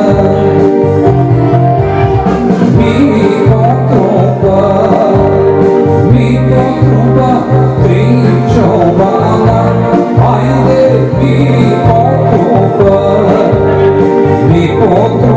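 A man singing into a microphone over instrumental backing music, with a steady repeating bass line.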